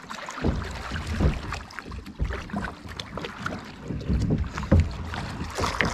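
Kayak on open water: water sloshing and splashing around the boat with a low rumble, broken by irregular knocks and clatters starting about half a second in.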